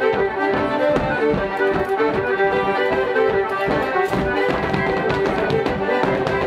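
Fiddle playing a fast traditional dance tune for a rapper sword dance, over a quick run of sharp taps from the dancers' stepping feet.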